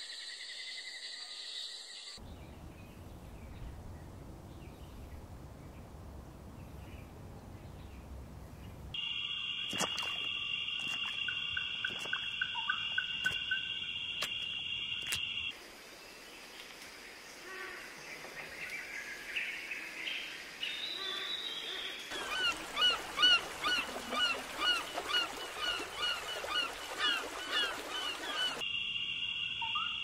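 Bird calls in a run of short nature recordings joined by cuts. There is a low rumbling ambience, then a steady high drone with scattered clicks, then mixed chirping. In the last part a bird repeats a short rising-and-falling call a little more than once a second.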